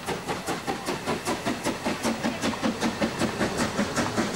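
Narrow-gauge steam locomotive 99 715 pulling away with its train, its exhaust chuffing in an even rhythm of about four beats a second over a hiss of steam.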